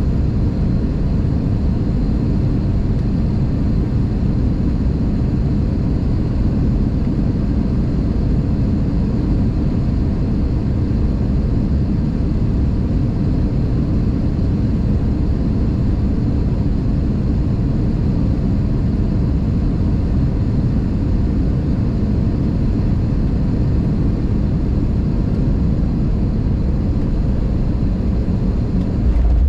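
Airbus A320 cabin noise on final approach, heard inside the cabin by the wing: a steady low rumble of the jet engines and airflow, with no breaks or changes.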